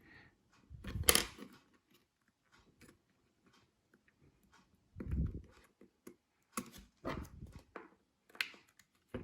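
Small-scale handwork on the opened Ring Doorbell Pro: scattered light clicks and scrapes of a plastic spudger and fingers on its plastic housing and circuit board parts. A few soft bumps come about a second in, about five seconds in and about seven seconds in.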